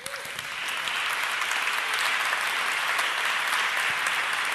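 A large audience applauding, swelling over the first second and then holding steady.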